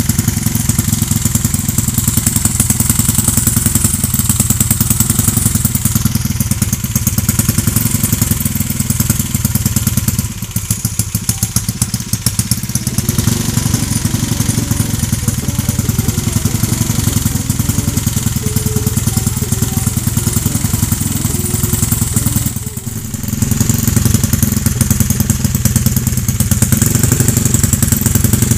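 Motorcycle engine, freshly rebuilt with a new crankshaft, running steadily at idle with a fast, even pulsing. It dips briefly about ten seconds in and again after about 23 seconds.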